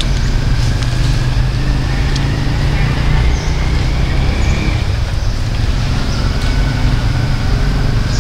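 Steady low rumble of road traffic, with a faint whine that slowly rises and falls as a vehicle passes.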